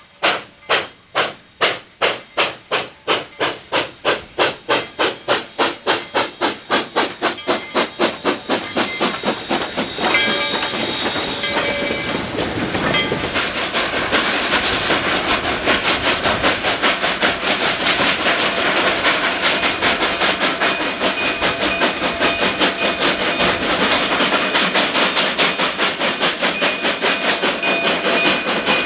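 Coal-fired narrow-gauge 2-8-2 steam locomotive starting away with its train, its exhaust chuffs quickening as it picks up speed. About ten seconds in, a several-toned steam whistle sounds for about three seconds. The sound then turns to the dense, rapid, overlapping exhaust of two steam locomotives working hard together on a double-headed train.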